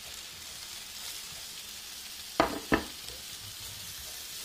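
Diced onion, celery and carrot sizzling steadily in hot grease in an electric skillet, being stirred with metal tongs, which give two sharp clicks about halfway through.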